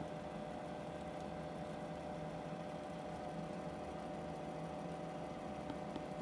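Steady electrical hum with a faint hiss and a few held tones: the room tone of an indoor grow room, unchanging throughout.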